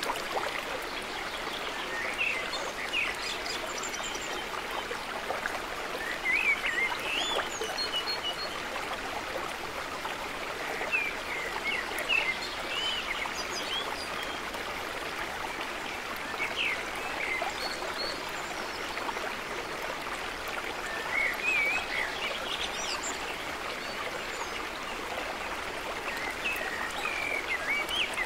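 Steady rush of running water, with birds chirping: a few quick chirps every few seconds.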